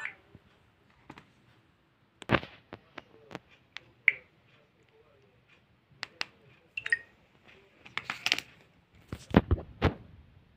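An LG G3 Stylus alarm ringtone cuts off right at the start, followed by scattered light clicks and taps of the phone being handled, with a few louder knocks about two seconds in and again near the end.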